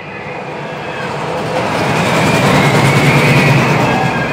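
Steel roller coaster train running on its track, a rumbling clatter that swells steadily louder to a peak about three seconds in, with thin wavering squeals over it.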